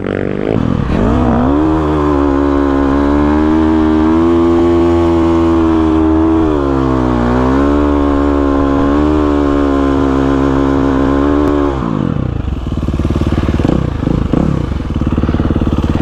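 Motorcycle engine held at steady high revs while riding. The revs dip briefly about halfway through, then drop away about three quarters of the way through.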